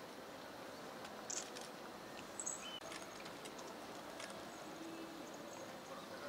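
Faint outdoor background hiss with a few scattered short, high chirps and clicks.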